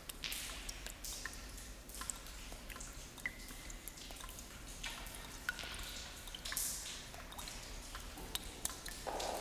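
Water drops falling irregularly with an echo, each drip a short click, some with a brief high ping, over a faint steady hiss.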